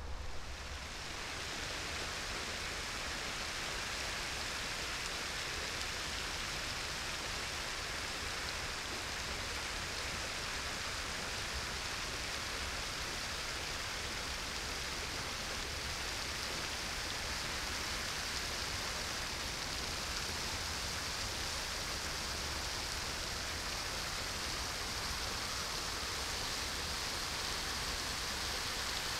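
Steady rushing hiss of splashing water.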